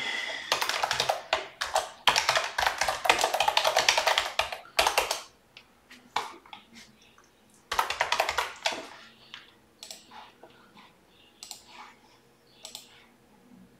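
Typing on a computer keyboard: a fast run of keystrokes lasting about four seconds, a second short burst a few seconds later, then a few scattered single clicks.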